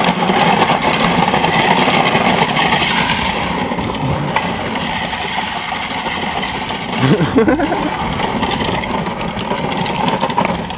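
Kids' ride-on truck converted to radio control, driven by a 2150kv brushless electric motor: steady mechanical whirring from the motor and drivetrain with its wheels rolling on asphalt.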